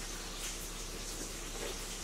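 A steady background hiss with a faint low hum.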